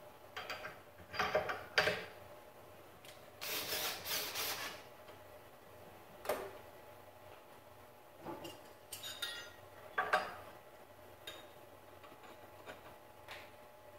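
Scattered metallic clinks, knocks and rubbing from tooling being handled and fitted at a benchtop milling machine's spindle during a tool change, with a longer rasping scrape about three and a half seconds in.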